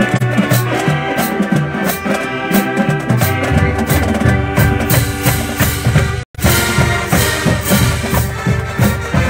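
College marching band playing in the stands: saxophones, brass and sousaphones over a steady drumline beat with bass drums and cymbals. The sound cuts out for an instant about six seconds in.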